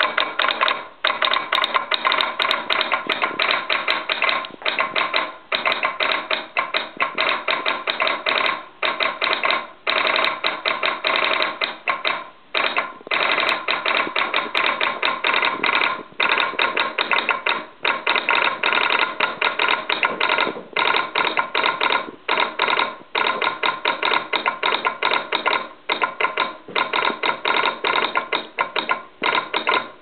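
Western Union telegraph sounder in its wooden resonator and a J. H. Bunnell box relay clicking out American Morse code, news copy at about 27 words per minute. Fast runs of sharp clicks, broken by short pauses between words.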